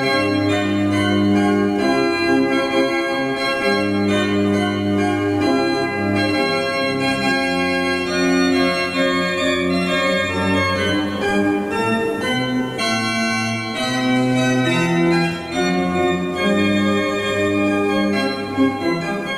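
Organ music: slow, sustained chords over a held bass line, the notes changing every second or two.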